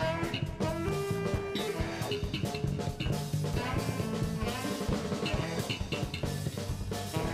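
Live band playing an instrumental passage: saxophone playing held notes and short phrases over a drum kit's steady beat, with electric guitar.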